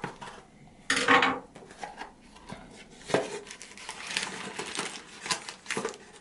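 Small cardboard box of a monitor wall-mount bracket being opened, with a loud cardboard scrape about a second in, then the black metal bracket plates and a plastic bag of screws taken out: rustling cardboard and paper with light metal clinks and rattles.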